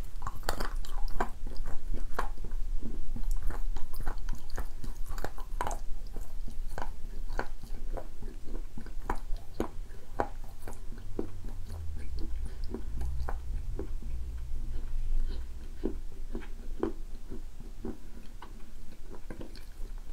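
A person chewing moist edible clay close to the microphone: soft, sticky mouth sounds with irregular small clicks and no crunch. The clay is wet and stretchy, and it does not squeak. A low rumble runs through the middle.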